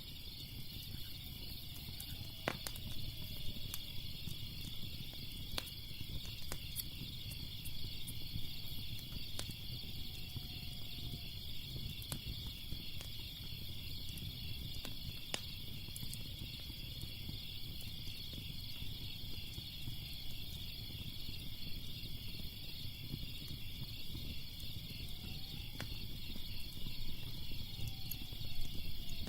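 Steady chorus of crickets chirping in a fast pulsing trill, with scattered sharp pops and snaps of a crackling fire over a low steady rumble.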